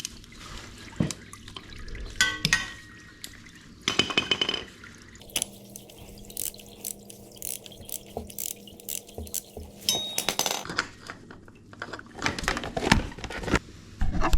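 Motor oil draining from a motorcycle's sump into a container, with scattered metallic clinks and knocks of tools and parts and a couple of short metallic rings.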